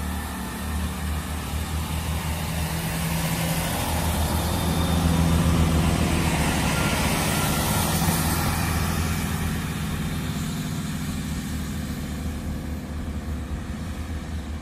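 GWR Class 166 diesel multiple unit pulling out of the station. Its diesel engines run with a steady low drone over the rumble of the wheels on the rails, loudest about five or six seconds in, then fading as the train draws away.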